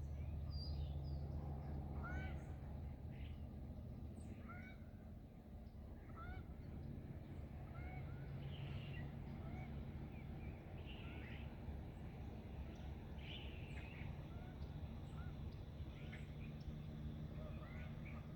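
A flock of Canada geese honking, with many short calls overlapping and repeating throughout, over a steady low rumble.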